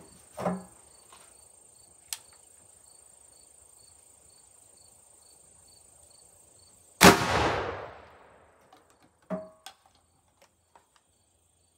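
A CVA Wolf .50-calibre muzzleloader fires a two-pellet, 100-grain black-powder-substitute charge about seven seconds in: one sharp, loud report with a ringing tail that fades over about a second and a half. A click of the rifle's action comes about half a second in, and two smaller clicks follow a couple of seconds after the shot as the action is handled.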